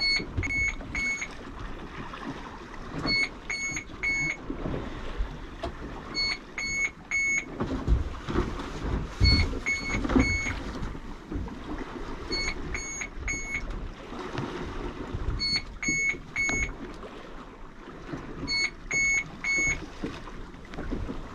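An electronic alarm beeping in sets of three quick, high beeps, the set repeating about every three seconds, over wind and water noise on a small boat.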